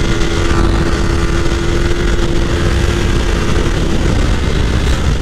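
Motorcycle riding at speed, with heavy wind rush on the microphone over the rumble of the ride; a steady engine note holds and drops away about four seconds in.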